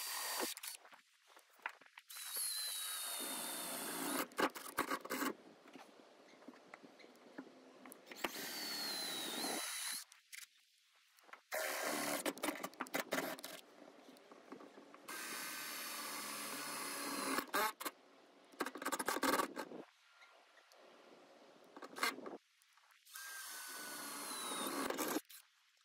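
Cordless drill running in a series of short runs of one to three seconds, separated by brief pauses, as it drills through the sheet-metal roof of a van, with a steady motor whine whose pitch shifts a little within some runs.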